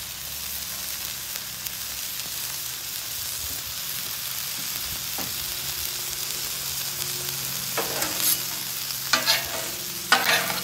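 Crawfish tails in melting butter and beef burger patties sizzling on a hot steel flat-top griddle, a steady frying hiss. Near the end, a metal spatula scrapes and stirs across the griddle a few times.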